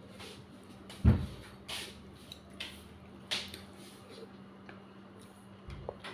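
Close-up eating sounds of dhedo being eaten: short wet chewing and lip-smacking noises every second or so, with one heavy low thump about a second in.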